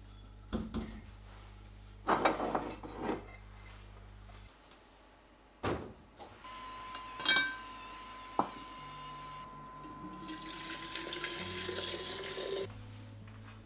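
Water pouring into a container, with a hiss and a pitch that rises slowly as it fills, stopping sharply near the end. A few clinks and knocks of kitchenware come before it.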